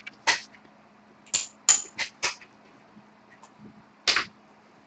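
Several short, sharp clicks and rustles, irregularly spaced: one near the start, a quick run of four in the middle, and one more near the end.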